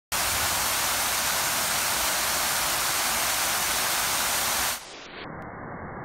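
Fountain water falling in streams from an overhead edge into a shallow pool, a steady loud splashing rush. About four and a half seconds in it turns suddenly quieter and muffled, as the iPhone's slow-motion playback takes over.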